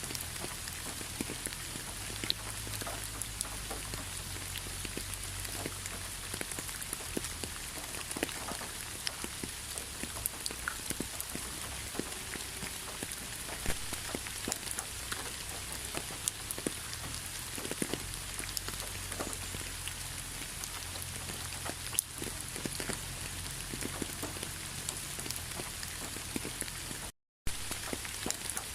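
Steady rain falling, with many individual drops clicking sharply through the hiss. About 27 seconds in, the sound cuts out completely for a fraction of a second, then resumes.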